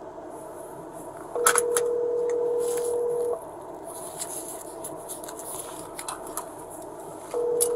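Telephone ringback tone from a smartphone on speaker as an outgoing call rings out: a steady two-second tone about a second and a half in, and the next ring starting near the end. A few faint clicks are heard between the rings.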